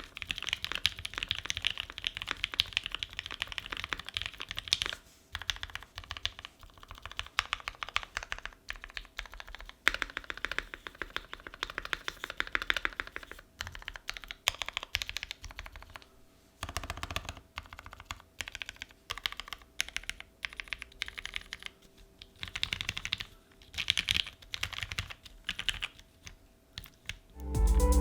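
Typing on an ai03 Vega custom mechanical keyboard with lubed and filmed Gateron Ink Black V1 linear switches in an aluminium plate, under GMK keycaps. Fast runs of keystrokes come in bursts of a few seconds, broken by short pauses.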